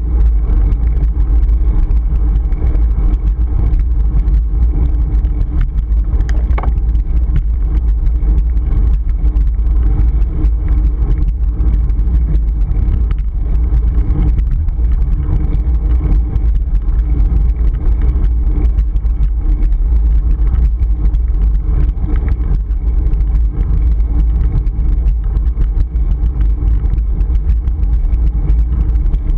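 Steady, loud wind rumble on a GoPro action camera's microphone while riding a road bike at speed.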